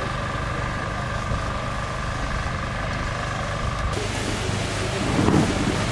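Wind buffeting the microphone, a steady low rumble that gusts louder near the end.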